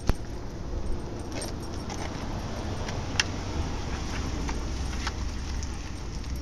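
Small metal pieces jingling and clicking, with a sharp click just after the start and another about three seconds in, over a low steady rumble.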